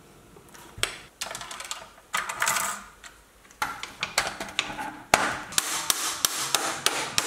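3D-printed PLA gun parts and metal tubing being handled and fitted together: a string of irregular sharp clicks and knocks with some rubbing and scraping between them.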